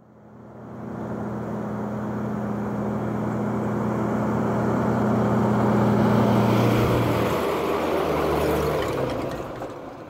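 Military half-track's engine running as the vehicle drives up close, a steady low hum that builds to its loudest about six seconds in. The engine note drops lower about seven seconds in, then fades away near the end.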